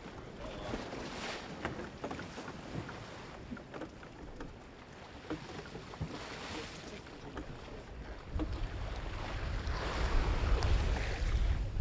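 Sea water rushing and splashing along a sailing schooner's hull as it runs through chop, with wind buffeting the microphone. The wind rumble grows much louder from about eight seconds in.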